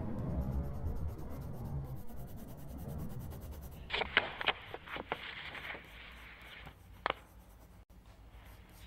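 A low rumble, then a quick run of short scratching strokes about four seconds in, with one more stroke about a second later.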